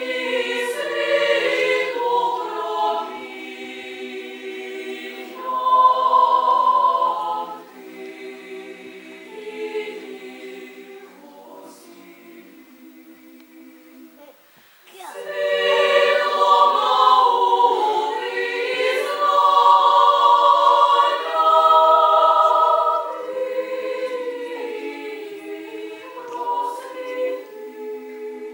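Female chamber choir singing a cappella in several parts: one phrase that swells and then fades softly, a brief pause about halfway through, then a loud new entry that tapers off near the end.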